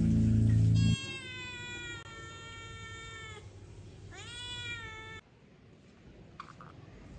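Music cuts off about a second in, then a grey tabby cat meows twice: one long, drawn-out call slowly falling in pitch, then a shorter meow that rises and falls.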